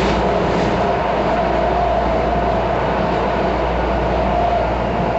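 Miami-Dade Metrorail train running, heard from inside the car: a steady rumble of the wheels and running gear, with a held whine that grows stronger about two seconds in and again near the end.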